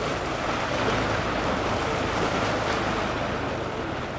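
A passing powerboat's engines running at cruising speed, with the rush and splash of its hull wake through the water in a steady wash of noise over a low engine hum.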